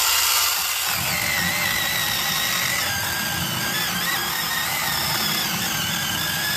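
ZEEKSAW 8-inch battery-powered mini chainsaw starting up abruptly and cutting through an oak log. Its electric motor runs with a steady whine that wavers slightly in pitch under load, without bogging down.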